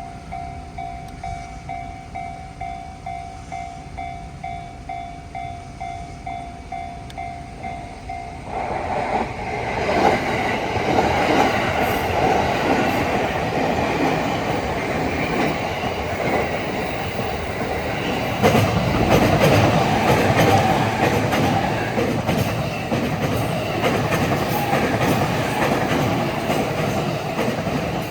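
Japanese level-crossing warning bell ringing about twice a second. About eight seconds in, a Tōkaidō Line electric commuter train reaches the crossing and drowns it out with the steady run of wheels on rail and clickety-clack over the rail joints. The train noise grows louder again a little before halfway.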